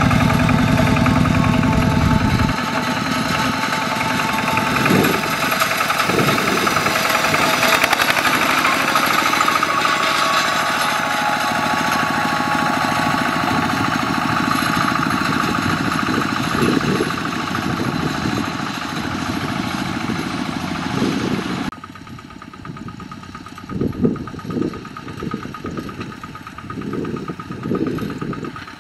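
Kubota RT120 single-cylinder diesel engine on a walk-behind two-wheel tractor running steadily under load as it pulls a straw rake through rice stubble. About three-quarters of the way through it suddenly turns quieter and duller, leaving uneven low thumps.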